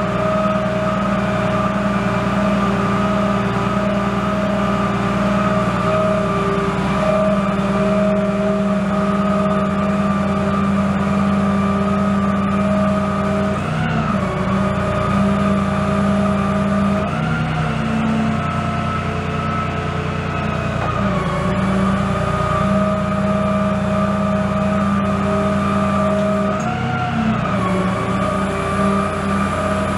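2010 Dodge Ram 5500's 6.7-litre inline-six turbo diesel running steadily with the PTO driving the hydraulic pump for the Terex Hi-Ranger bucket boom. A steady hum with a whine over it that sags in pitch a few times, each time briefly, as the boom is worked.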